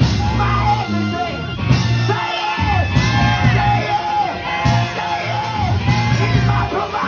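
Church music with a bass line of held low notes under a voice singing in wavering, gliding phrases, mixed with shouts.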